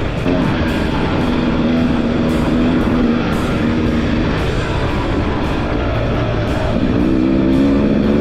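Rock music with distorted electric guitar and a steady drum beat.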